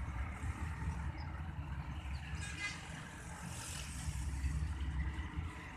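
Distant Chinese-built ZCU30 diesel locomotive approaching, heard as a steady low rumble. A few faint bird chirps and a brief high tone come about two and a half seconds in.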